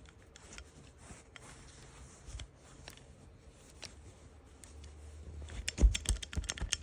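Kwikset doorknob lock and keys being handled: scattered faint clicks, then from about five and a half seconds in a quick run of sharp clicks and rattles as the key is worked in the lock cylinder.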